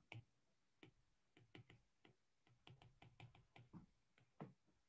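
Near silence with faint, irregular clicks and taps of a stylus on a tablet screen as handwriting is started.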